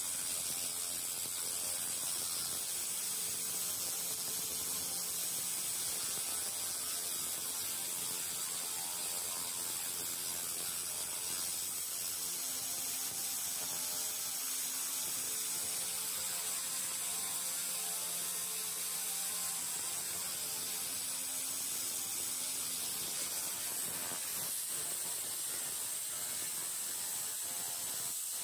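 BOGONG 300 W handheld pulsed laser cleaner ablating rust from metal: a steady, high crackling hiss made of rapid fine clicks, with the machine's faint hum underneath.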